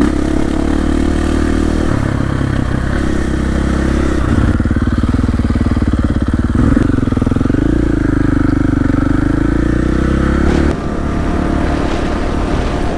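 KTM 450 XC-F's single-cylinder four-stroke engine running under way, its note stepping up a couple of times and wavering in pitch, then dropping lower and quieter about eleven seconds in as the throttle eases off.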